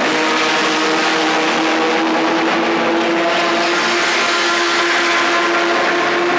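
The engines of a pack of historic racing cars, running together as a steady, loud blend of several engine notes as the field streams past in a line.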